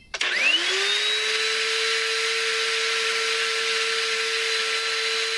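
Vacuum cleaner switched on: its motor whine rises over about a second as it spins up, then runs steadily over a loud rush of air.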